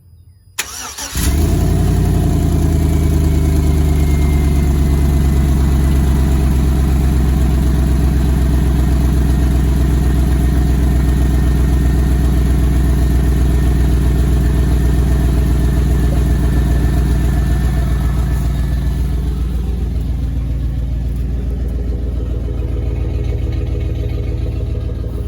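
2003 Chevy Silverado's engine cranks briefly and starts about a second in, then runs at a steady idle that eases down slightly near the end. It is being checked after a broken exhaust-manifold stud was replaced to cure an exhaust leak; the owner says it may still leak a little but no longer rattles or squeaks and sounds a lot better.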